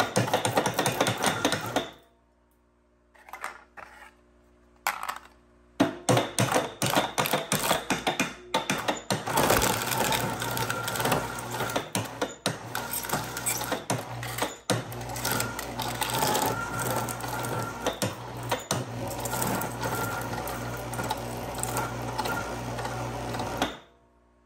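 Precious Plastic shredder's steel cutter blades chewing up an aluminum can: a dense, continuous metallic crunching and clicking over a steady low hum from the drive. It stops for a few seconds about two seconds in. It then runs on steadily until the can is shredded and cuts off shortly before the end.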